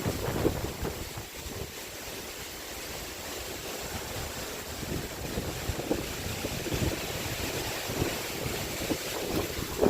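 Wind blowing across the microphone: a steady rush with uneven low buffeting.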